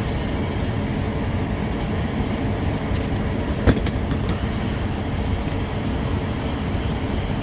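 Steady mechanical drone with a faint hum in it, and one sharp click about halfway through.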